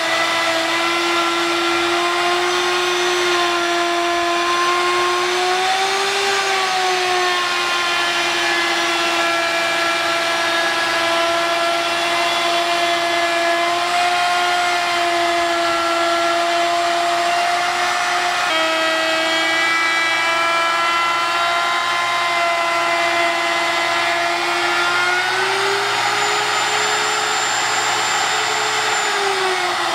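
Router motor whining steadily as the bit cuts a raised-panel profile into MDF, its pitch wavering slightly under load. A dust-extraction vacuum runs through the hose on the router's base. Near the end the whine rises in pitch, then drops as the motor is switched off and spins down.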